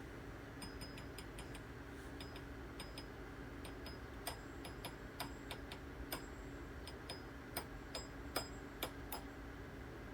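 Light, irregular metallic taps, a few dozen of them and some sharper than others, as a Beretta red-dot mounting plate is pounded into the rear-sight dovetail of an APX pistol slide held in a vise, with a tape wrap cushioning the strikes.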